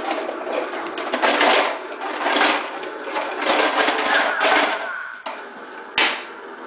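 Child's toy push lawn mower clattering and rattling as it is pushed along, in repeated bursts about once a second, with a sharp click near the end.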